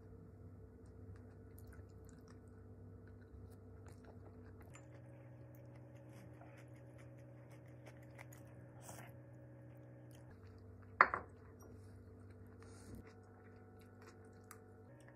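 Quiet eating sounds: chewing and small taps and scrapes of a wooden spoon and chopsticks in ceramic bowls, over a faint steady hum. A single sharp clink against a bowl about eleven seconds in is the loudest sound.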